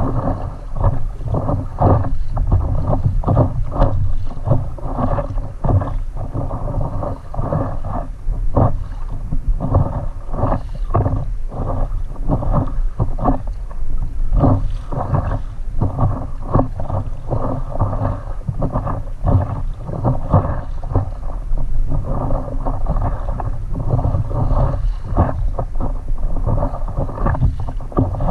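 Wind buffeting the microphone in a steady low rumble, mixed with water lapping and splashing against a stand-up paddleboard on a light chop.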